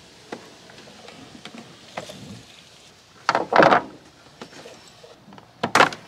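Hard plastic interior trim piece of a Jeep Wrangler JKU being pried and pulled free of its clips. There are a few light clicks, then a louder scraping rattle about three and a half seconds in and another shortly before the end.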